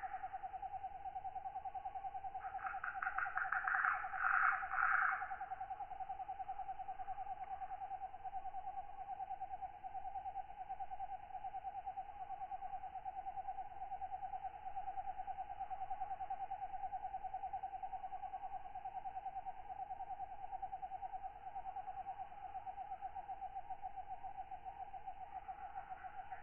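Night ambience of katydids and other insects: a steady, rapidly pulsing trill throughout, with a louder buzzy rasp of quick pulses from about 2.5 to 5.5 seconds in and another starting right at the end.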